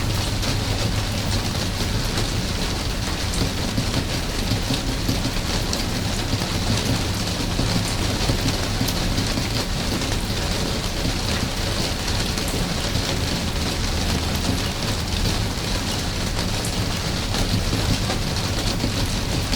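Steady rain falling, a dense even hiss with many small drop ticks scattered through it, over a constant low rumble.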